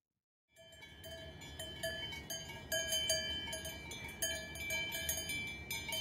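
Several cowbells on grazing cows clanking irregularly and overlapping, the strikes ringing on, over a low steady outdoor background noise. The sound starts about half a second in.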